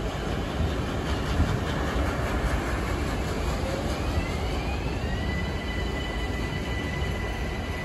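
Freight train of car-transport wagons rolling past on the rails with a steady rumble. About four seconds in, a high whine rises in pitch and then holds steady.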